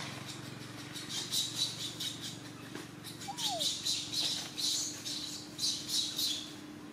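A series of short, high, raspy animal calls, about a dozen irregular bursts that start about a second in and stop shortly before the end, with one brief falling whistle midway.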